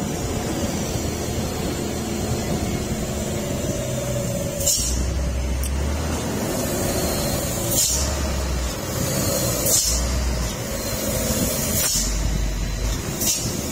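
Hino 500 heavy truck hauling a bulldozer on a low-loader, its diesel engine running at low speed through a tight turn. Several short, sharp air-brake hisses come every couple of seconds as the brakes are worked.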